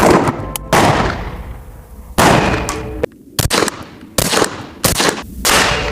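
A string of about seven suppressed rifle shots striking a wooden target, each a sharp crack with a short decaying tail, spaced irregularly half a second to a second and a half apart. Some rounds deflect off the wood into an old metal gate, adding a faint ring.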